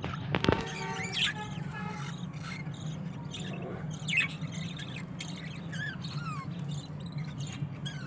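Budgerigars chirping and squawking in many short calls, some rising or falling in pitch, over a steady low hum, with a sharp knock about half a second in.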